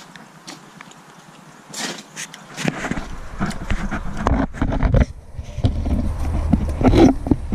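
Footsteps and light clicks, then from about three seconds in a low handling rumble with scrapes and knocks as the phone is pushed in among the truck's underside.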